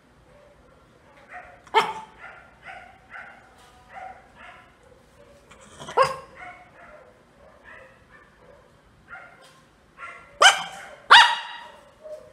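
Miniature pinscher barking: four loud, sharp barks, two of them close together near the end, with quieter short calls in between.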